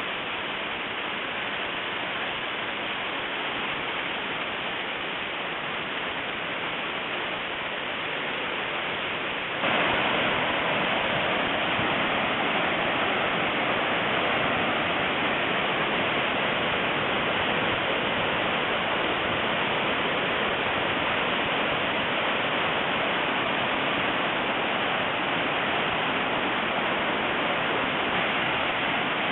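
Waterfall: a steady rush of falling water that jumps suddenly louder about ten seconds in.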